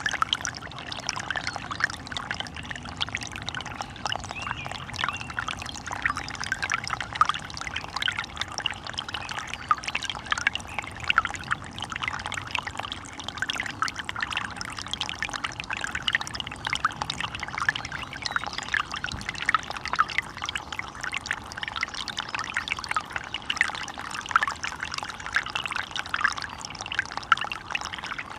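Running water of a small stream, a steady babbling made of many quick little splashes.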